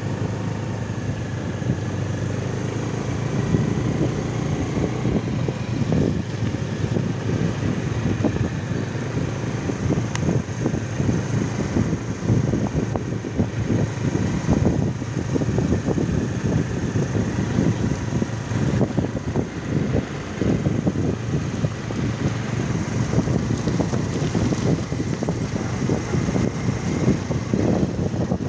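Motor scooter engine running steadily while riding, with wind buffeting the microphone in irregular gusts.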